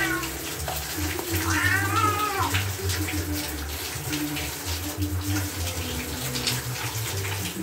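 A wet calico cat in a bathtub gives one long meow, rising then falling, about one and a half seconds in, after a short cry at the very start. Water runs and splashes in the tub throughout.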